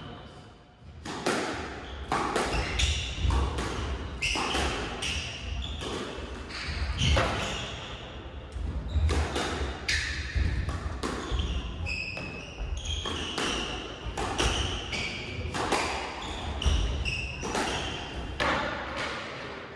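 A squash rally: a string of sharp hits as the ball cracks off the racquets and the walls, starting about a second in, with quick footsteps and short high squeaks of the players' shoes on the wooden court floor.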